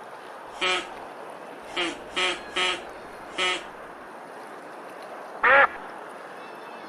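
Duck quacking: five short nasal quacks in the first three and a half seconds, then one louder, longer call with a bending pitch about five and a half seconds in.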